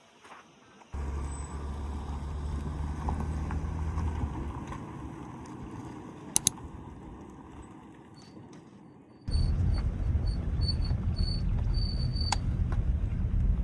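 A car driving, with a steady engine and road hum. A cut about nine seconds in brings a louder stretch of the same kind of driving noise.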